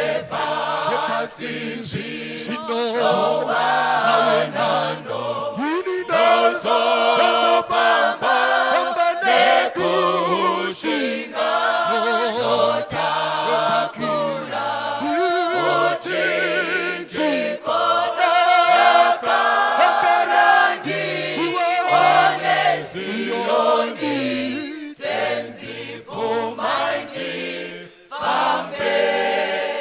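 A choir singing a hymn in several parts, with continuous held, wavering notes.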